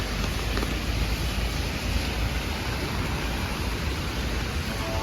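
Heavy rain falling steadily, a continuous even hiss with a low rumble underneath.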